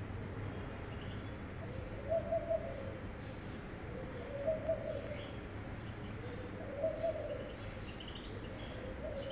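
A dove cooing a low three-note phrase, repeated about every two and a half seconds, with faint short high chirps from a caged Eurasian siskin in between.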